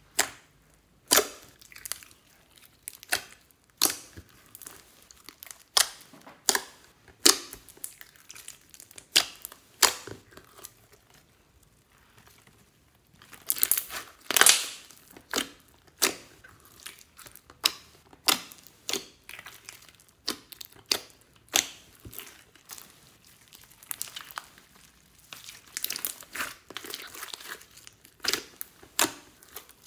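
Hands squishing and kneading a mass of mixed slime with foam beads, giving an irregular string of sticky pops and crackles, thicker around the middle and again near the end.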